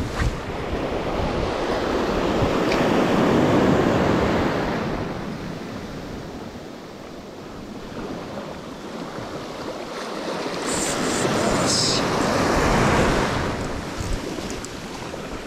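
Sea surf breaking and washing up a beach, swelling and fading twice as two waves come in and draw back, with wind buffeting the microphone.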